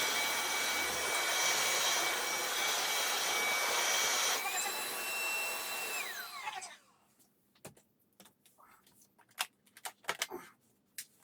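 Xiaomi Truclean W10 Pro wet-dry floor vacuum running with a steady high whine. Its pitch steps up about four seconds in, and about six seconds in it is switched off and winds down. A few light clicks and knocks follow.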